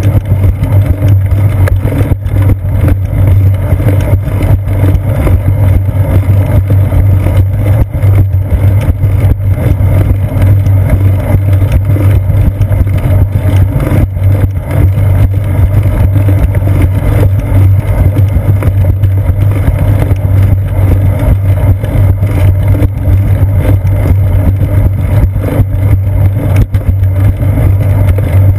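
Loud, steady low rumble of wind and ride vibration picked up by a seat-post-mounted GoPro Hero 2 in its housing as the bicycle rolls along a concrete sidewalk.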